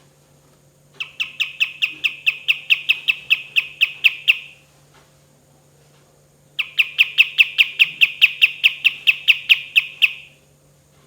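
A kapas tembak songbird calling in two long rolls of rapid, sharp repeated notes, about five a second, each roll lasting about three and a half seconds with a pause of about two seconds between them.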